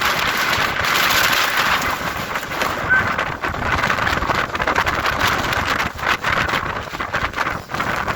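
Hurricane wind blowing in gusts, a loud, dense rushing noise that swells and dips.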